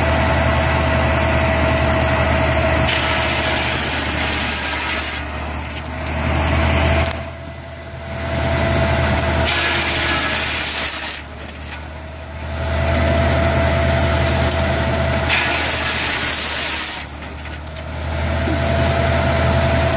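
A belt-driven Case shingle mill cutting wood blocks into shingles, over a steady engine hum. The cutting noise runs loud and drops away briefly about four times, between passes.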